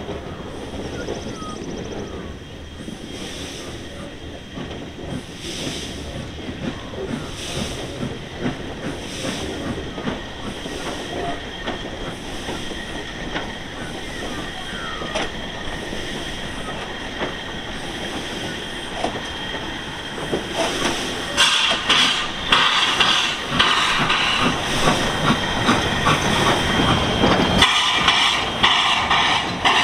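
W class 4-8-2 steam locomotive moving slowly, its exhaust giving slow, evenly spaced chuffs. About two-thirds of the way through, a loud hiss of escaping steam sets in and keeps going.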